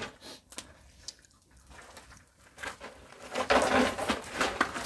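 Close-up eating noises: biting and chewing roasted rabbit meat, with scattered sharp clicks at first, then a louder, dense crackly stretch in the second half.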